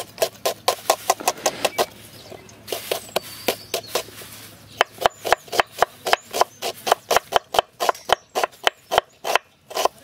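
Kitchen knife chopping onions on a wooden cutting board: quick knocks of the blade on the board, about five a second, easing off for a couple of seconds about two seconds in, then picking up again.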